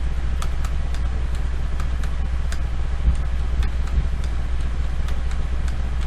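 Steady low electrical hum with irregular computer mouse clicks, a few each second.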